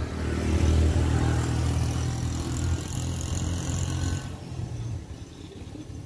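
Motor vehicle engine running steadily nearby, then fading away about four to five seconds in.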